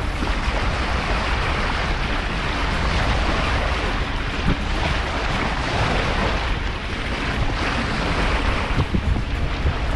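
Steady wind buffeting the microphone, with the rush of sea water, a continuous noise heaviest in the low end and without any clear engine note.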